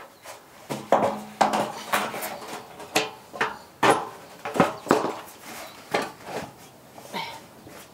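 Curved bullnose corrugated-iron verandah sheet being lifted and shifted into place, clanking and rattling in a run of irregular metallic knocks, some of them ringing briefly.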